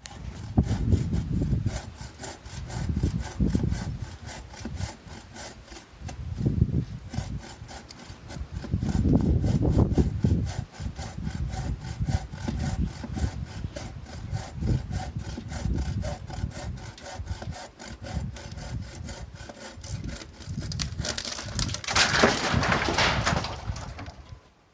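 Handsaw cutting through a dead, dry tree limb in steady back-and-forth strokes, with a louder, harsher stretch near the end.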